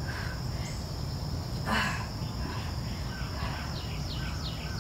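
Outdoor background ambience: a steady high insect drone with faint bird chirps over a constant low rumble, and one brief soft noise about two seconds in.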